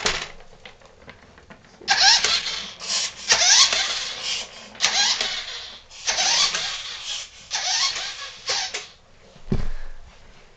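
Toy RC car's small electric drive motor and gears whirring in about five short bursts of a second or so, several starting with a rising whine. A low thump near the end.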